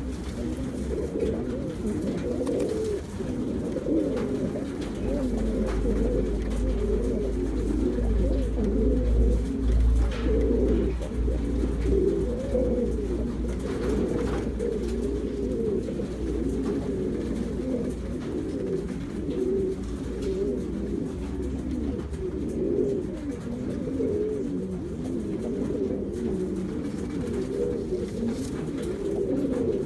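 Buchón Gorguero pouter pigeons cooing: a low, wavering coo that goes on without a break, with calls overlapping.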